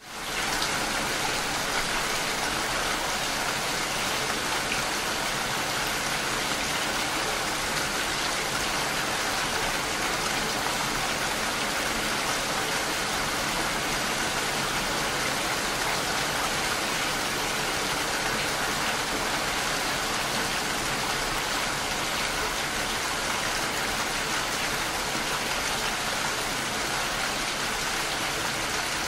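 Steady rain falling, an even hiss with no breaks, fading in quickly at the very start.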